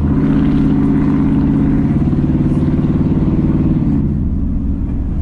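Straight-piped exhaust of a 1997 Ford F-150 with true dual pipes, heard from inside the cab and running loud. The engine note steps up in level at the start, holds steady for about four seconds, then drops in pitch as the revs fall.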